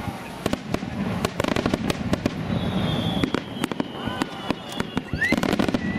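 Fireworks display: many irregular sharp bangs of aerial shells bursting in quick succession, with crackle between them. A faint high whistle runs through the middle.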